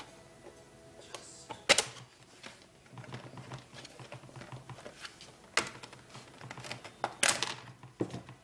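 Plastic bay cover on the underside of an Asus N56V laptop being pried and lifted off: a handful of sharp plastic clicks and snaps as its clips let go, the loudest about two seconds in, with lighter ticking and handling noise between.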